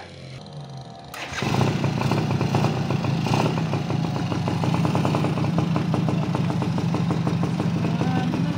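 Suzuki RC100's single-cylinder two-stroke engine starts about a second in, then runs at a steady idle.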